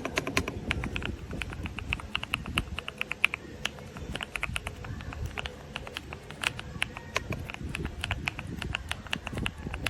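Typing on a Kisnt wireless gasket-mounted mechanical keyboard with linear switches: a quick, uneven run of key clacks, several a second.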